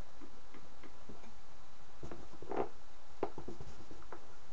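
Irregular soft clicks and knocks from a ventriloquist's dummy being worked, as its head is turned. The clicks are sparse at first, then bunch together about two to four seconds in, over a steady hiss.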